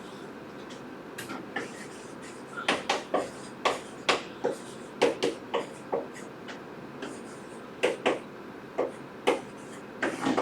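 Handwriting: a string of short, irregular taps and scratches as equations are written out and solved by hand, in two runs with a short pause between them.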